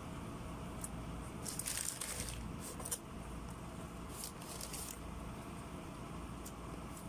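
Plastic bag and foil takeaway tray rustling and crinkling in short bursts as a bread roll is handled and torn apart, with a sharp click about three seconds in, over a steady low hum.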